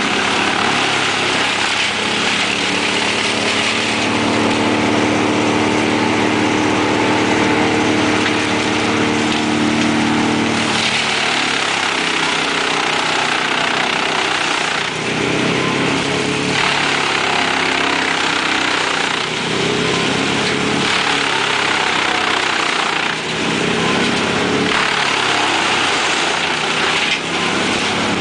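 Mobile wood chipper and the grapple loader feeding it, engines running hard over a constant rushing noise from the chipper. The engine note holds steady for about the first ten seconds, then wavers up and down as the load changes.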